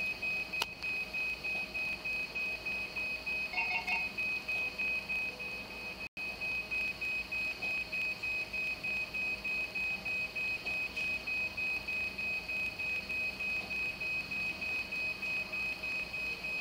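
Hemodialysis machine alarm beeping in a rapid, even repeat of a high electronic tone, the machine alarming because the patient's blood circuit has been stopped and is clotting. A short two-note chime sounds briefly about four seconds in.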